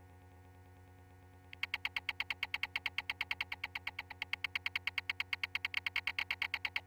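Electronic sound effect: a faint low hum, then about one and a half seconds in a rapid, high-pitched pulsing starts, about eight beeps a second, and keeps going.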